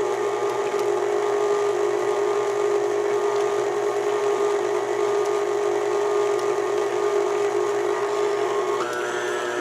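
Electric stand mixer running steadily on low speed, its paddle beating cake batter: an even motor whine. About nine seconds in, the tone shifts and a higher whine joins it.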